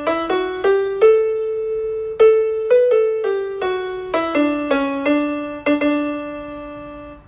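A slow melody on piano or electric piano, one note at a time, each note struck and left to fade, with a longer held note a second or two in.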